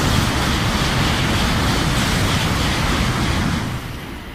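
Shinkansen bullet train passing at high speed, a loud steady rushing noise that drops away sharply near the end as the train clears.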